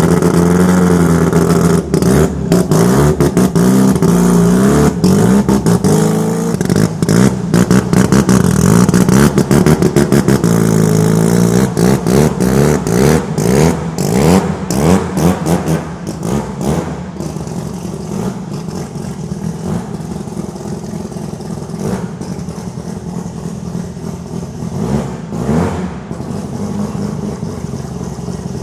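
A Mazda RX-7's rotary engine revving hard at high rpm, its pitch rising and falling, with many sharp cracks from the exhaust. From about halfway it runs at a lower level.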